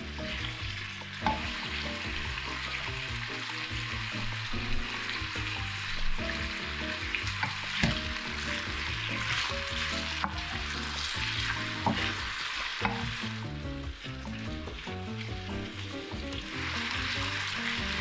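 Crinkle-cut potato slices sizzling in oil in a nonstick frying pan while a wooden spatula stirs them. The spatula knocks against the pan now and then, giving a few sharp clicks over the steady sizzle.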